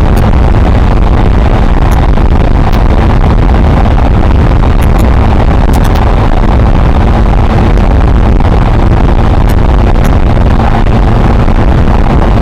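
Suzuki Marauder 125's single-cylinder four-stroke engine running through its stock exhaust while the bike cruises at a steady speed. The sound is loud and even, with no change in revs.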